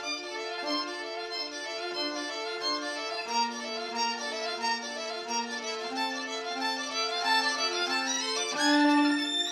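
Electric violin playing sustained lower notes under a moving melody, with a louder, brighter note swelling near the end.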